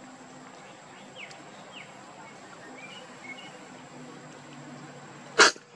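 Quiet outdoor ambience with a few faint, brief bird chirps, broken about five seconds in by one sudden, loud, very short burst of noise.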